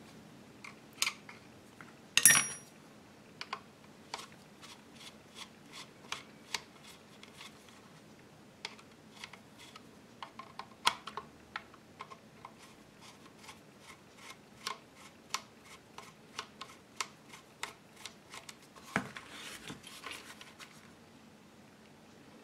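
Scattered small metallic clicks and taps of a screwdriver working on the steel receiver and foregrip parts of a gun, with one louder ringing metal clink about two seconds in. A short scraping rustle comes near the end as the gun is handled and turned over.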